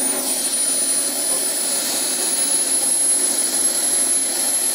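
Miniature turbine engines of a large radio-controlled model twin-jet running at idle: a steady high-pitched whine that creeps slightly upward in pitch, over a rushing hiss.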